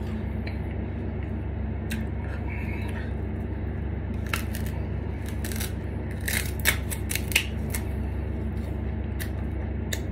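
Raw sugarcane stalk being bitten and chewed, the fibrous cane cracking and crunching between the teeth in a series of sharp crunches, most of them a little after the middle.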